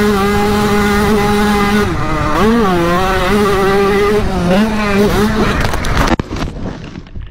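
Dirt bike engine running hard at high revs, its pitch dipping and climbing a couple of times as the throttle is rolled off and back on. The engine cuts off suddenly about six seconds in with a thump and rough noise as the bike crashes.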